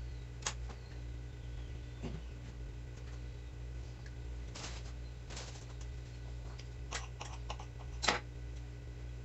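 Scattered sharp taps and clicks, about six, the loudest near the end, as biscuit dough is cut with a knife on a stone countertop and the pieces are set on a metal baking tray, over a steady low hum.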